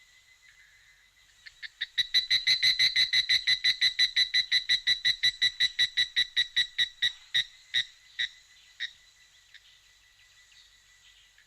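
Cricket-chirping sound effect: a faint steady chirring, with a loud run of rapid chirps about four to five a second that slows and fades out.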